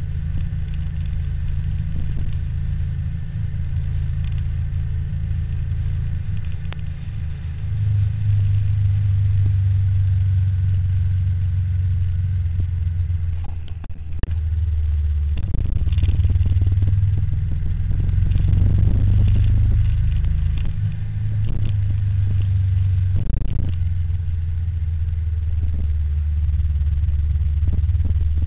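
Steady low rumble of a motor vehicle engine on the road, its pitch stepping up and down a few times.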